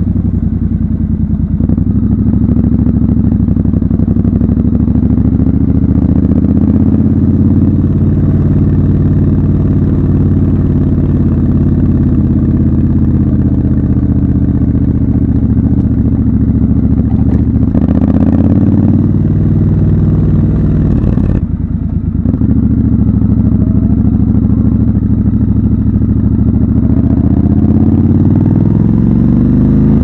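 Triumph Scrambler 1200 XC's 1200 cc parallel-twin engine running under way, its note rising and falling with the throttle. The sound briefly cuts out about 21 seconds in, then climbs in pitch near the end as the bike accelerates.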